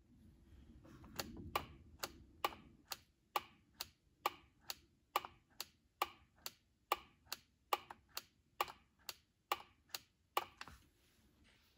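Push-button switch pressed over and over, a little faster than twice a second, about twenty times. Each press makes a sharp click as the 5-pin Bosch-style 12 V relay clicks over and moves power between pin 87 and pin 87A.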